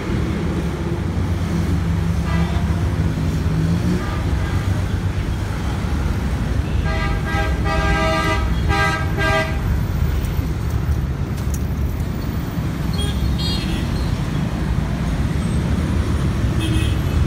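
Street traffic with a steady engine rumble, and a vehicle horn sounding a quick run of short toots about halfway through.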